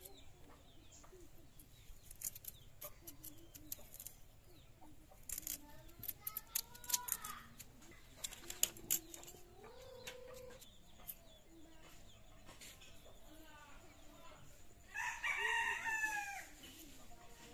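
A rooster crows once near the end, a loud call of about a second and a half. Softer chicken calls come in the middle, with scattered sharp clicks.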